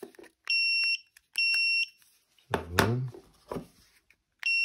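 An electronic beeper sounds high, steady beeps of about half a second each, two a second apart near the start and another near the end. A loud, short rattling clatter comes a little past halfway.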